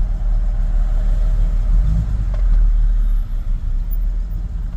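Engine of a 1967 Chevy C10 pickup, near stock with headers, running at low revs with a steady low rumble, heard from inside the cab.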